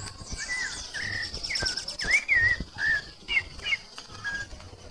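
Bird song: a series of short whistled notes that slur up and down, over a steady high trill.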